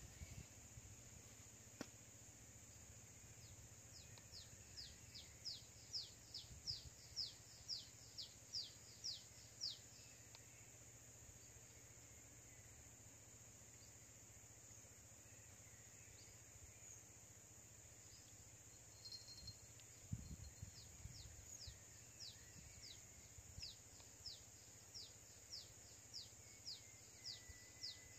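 A bird calling a run of a dozen or more short, high notes, each falling in pitch, about three a second; the run comes twice, about a seventh of the way in and again near the end. Under it, a steady high insect drone.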